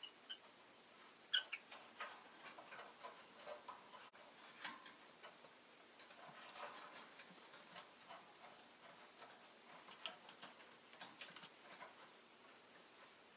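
Faint, irregular small clicks and ticks over a quiet hiss, with one sharper click about a second and a half in.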